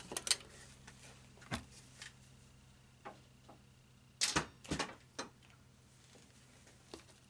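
Scattered light clicks and taps of small parts and tools being handled and set down on a workbench, with a cluster of several clicks about four to five seconds in. A faint steady hum runs underneath.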